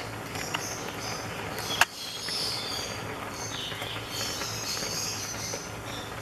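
Milk and grated carrot bubbling as they boil down in a pan and are stirred with a wooden spoon, with one sharp knock about two seconds in.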